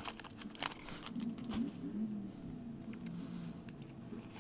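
Faint crinkling of a torn foil trading-card pack wrapper and cards being handled, with a few soft crackles in the first second or so and then only light handling.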